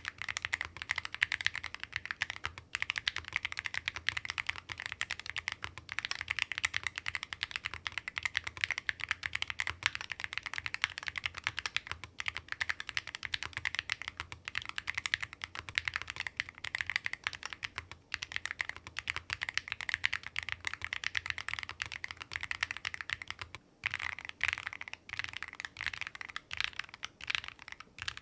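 Keystrokes on a Keychron eX67 HE 8K full-aluminium magnetic-switch keyboard with Cherry-profile double-shot PBT keycaps, typed fast and continuously. The typing stops for a moment near the end, then picks up again in sparser strokes.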